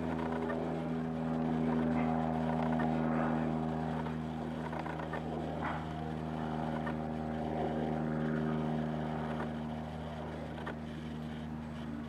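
Steady engine drone, a low even hum with overtones that holds one pitch and eases slightly toward the end.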